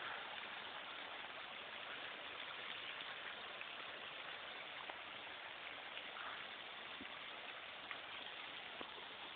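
Steady faint hiss of background noise, with a few faint ticks.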